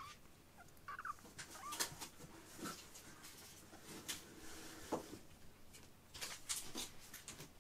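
Young kittens giving a couple of faint, short mews about a second in, amid soft scattered taps and scratches as they move about on carpet.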